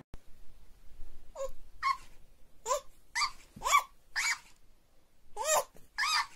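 A baby's short squeals, each echoed about half a second later by a plush talking hamster toy repeating it in a higher, sped-up voice; four such exchanges.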